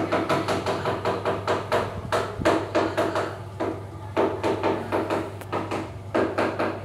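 Cat licking its paw while grooming, in a quick run of wet licking clicks close to the microphone, about five a second, pausing briefly twice.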